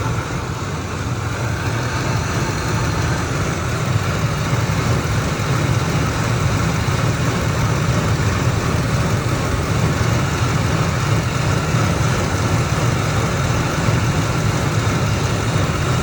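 2003 Ford Expedition V8 idling steadily as it warms toward operating temperature, with no distinct chirp standing out.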